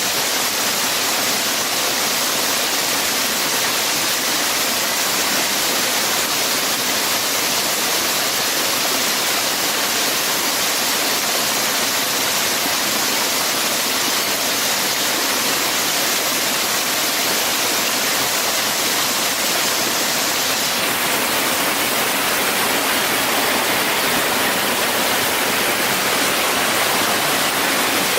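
Steady rushing of flowing water: an even, continuous hiss with no separate splashes. The highest part of the hiss drops a little about three quarters of the way through.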